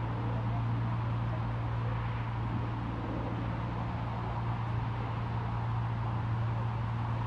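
Steady low-pitched hum over an even background hiss.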